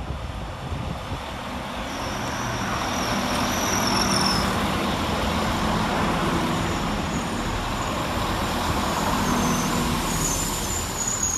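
Northern Class 195 diesel multiple unit running through the station: steady diesel engine and wheel noise that builds over the first few seconds and holds, with thin high-pitched metallic squeals about two seconds in and again near the end.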